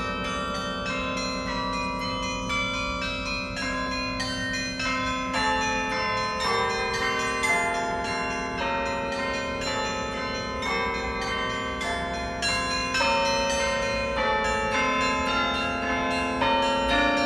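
The University of Wisconsin–Madison carillon being played in recital: a run of struck bell notes, each ringing on under the next so that the tones overlap. The bells grow somewhat louder in the second half.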